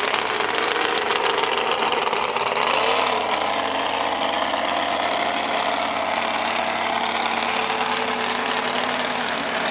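Engine of a late-1970s Ford F-series pulling truck with stacked exhaust pipes, running loud. Its pitch rises about two to three seconds in as it revs, then holds steady.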